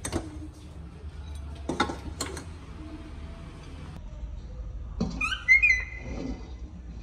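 A few sharp knocks, then about five seconds in a short high-pitched call from a pet monkey, rising and then held briefly, the loudest sound here.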